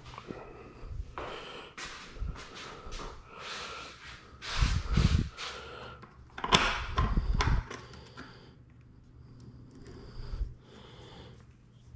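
Handling noises from working on an electric dirt bike's frame: irregular rustling and scraping of hands and a screwdriver on the bike, with two louder bumps about five and seven seconds in.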